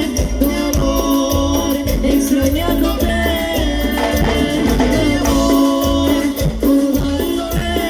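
Recorded Latin dance music from a band: a steady bass beat under sustained melodic lines, with rapid shaker-like percussion ticking throughout.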